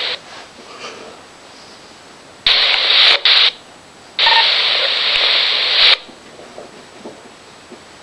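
RadioShack Pro-97 police scanner's speaker sending out two bursts of loud static hiss, each starting and stopping abruptly, as its squelch opens on carriers that carry no voice. The first comes about two and a half seconds in and lasts about a second; the second comes a moment later and lasts under two seconds.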